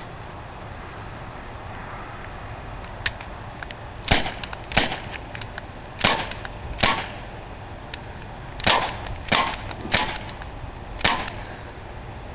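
CO2-powered .177 BB pistol firing about eight sharp cracks in uneven pairs, with a few fainter clicks between them.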